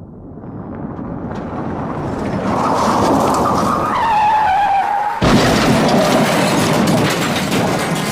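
Car crash sound effect: a car comes on, growing steadily louder, its tyres screech for about a second, and then it crashes suddenly about five seconds in, followed by clattering debris.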